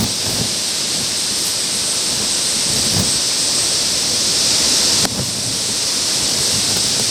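Heavy rain whipped by gusting wind at the start of a downburst, a loud steady hiss with irregular low thumps. The drops hit the plastic sheet covering the camera.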